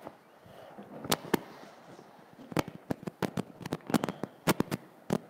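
Irregular sharp clicks and crackles: a few at first, then coming thick and fast from about halfway.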